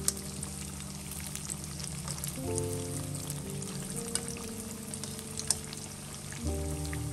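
Hot oil sizzling and crackling around battered pieces shallow-frying in a pan, with a few sharp pops. Soft background music plays under it.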